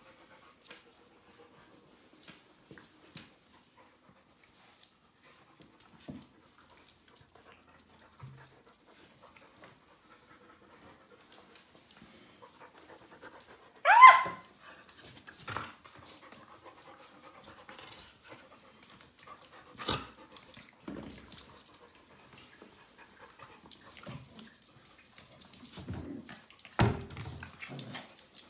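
Puppies playing and scuffling, with panting and scattered clicks and scuffles. About halfway through a puppy gives one short high-pitched yelp that rises in pitch, the loudest sound, and near the end come a few thumps.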